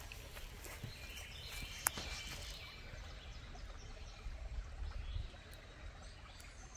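Outdoor creekside ambience: a steady low rumble with faint bird chirps, and one sharp click about two seconds in.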